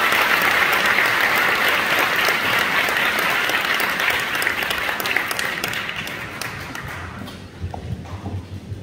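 Audience applause, steady at first, then dying away over the second half.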